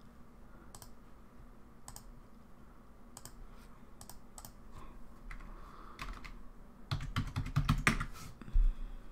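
Typing on a computer keyboard: a few spaced clicks, then a quick run of keystrokes about seven seconds in as a five-digit ZIP code is entered, ending with one louder key tap.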